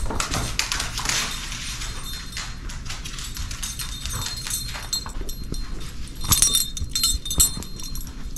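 A dog running and playing with a toy: quick clicks and scuffles of claws on a wooden floor, with a cluster of sharp metallic jingles, most likely her collar tags, a little after six seconds in, the loudest moment.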